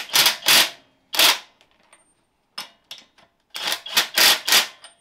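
Cordless impact wrench hammering wheel nuts tight on a mounted wheel, in short loud bursts: two right away, one about a second in, then a longer run of bursts near the end after a pause.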